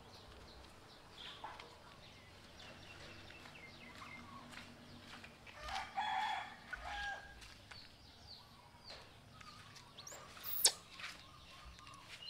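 A rooster crowing in the background about six seconds in, over faint bird chirps, with one sharp click near the end.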